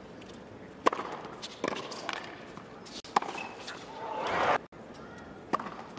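Tennis racket strikes on the ball during a hard-court rally: four sharp pops about a second or two apart over a low crowd hush. A louder swelling player's grunt comes just after four seconds and cuts off abruptly.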